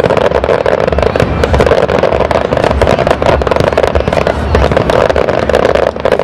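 Aerial fireworks shells bursting in a rapid, near-continuous barrage, with many loud bangs overlapping.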